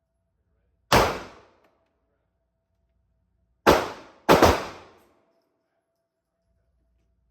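Gunshots from a firearm being fired through a 30-round magazine without a malfunction. There is one shot about a second in, then three more in quick succession near the middle, each followed by a short echoing tail.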